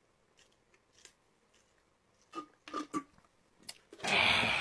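A man chugging a can of Four Loko: a few faint swallowing sounds, then about four seconds in a loud, harsh, breathy burst lasting about a second as he doubles over after the drink.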